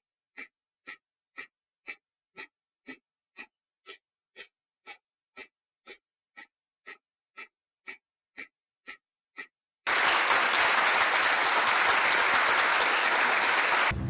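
Countdown-timer sound effect: a clock ticking about twice a second for nearly ten seconds, then a loud, steady burst of applause takes over.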